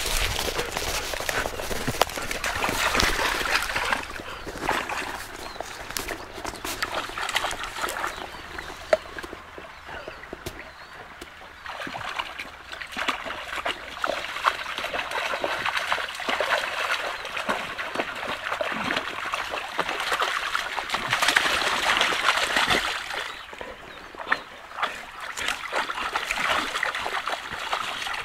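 A Labrador–Belgian Shepherd mix dog splashing and wading about in a shallow stream, water sloshing and splattering around its legs over the trickle of the stream. The splashing comes in spells, louder near the start, in the middle and a little before the end.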